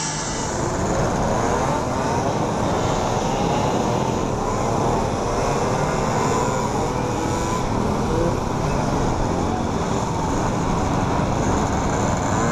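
A large pack of mopeds riding together, many small engines running at once and rising and falling in pitch against each other.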